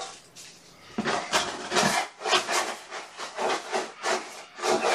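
Kittens crunching dry kibble, a quick run of short crisp chewing sounds about three a second.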